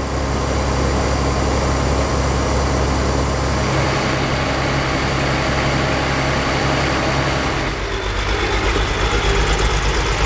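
Ursus 1614 Turbo tractor's six-cylinder turbodiesel engine running steadily at idle. About eight seconds in, the sound changes to a closer engine note with an even low pulsing beat.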